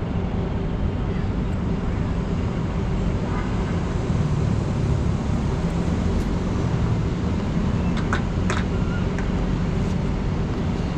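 Steady low rumble of city traffic. A few sharp clicks come about eight seconds in.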